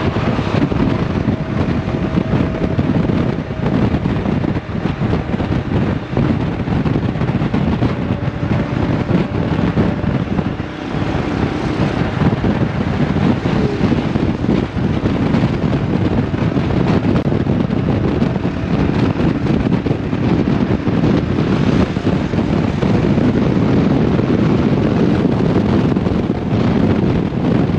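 Wind rushing over the microphone of a motorcycle moving at highway speed, with the bike's engine and road noise underneath.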